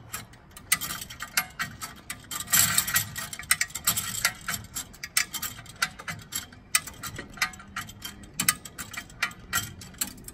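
Hand-cranked come-along (ratchet cable puller) being worked under heavy load, its pawl clicking in quick runs with each stroke of the handle as it drags a bus engine out on its cradle.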